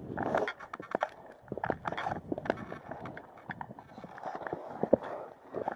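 A hiker's footsteps with irregular knocks, clicks and rustling of gear, and one sharper knock near the end.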